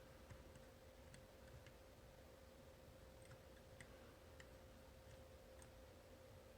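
Faint, irregular small clicks, about a dozen, from a homemade pick turning the rotating disks inside an Abloy Classic disc-detainer cam lock, over a faint steady hum. The lock is not yet opening.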